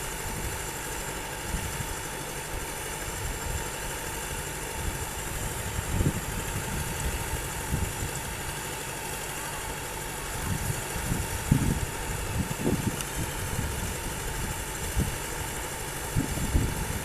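Combine harvester engine running steadily, with irregular low thumps over it.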